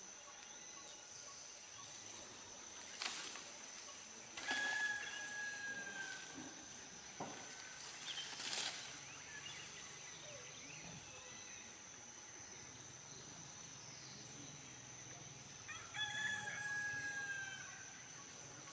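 Forest elephant tearing down palm fronds: a few sharp cracks and rustles of snapping leaves, over a steady high insect whine. Twice, a clear held animal call lasting about a second and a half sounds out, dipping slightly at its end.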